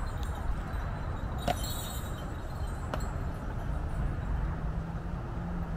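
Steady low rumble of a ride in a horse-drawn carriage, with a couple of faint clicks about a second and a half and three seconds in.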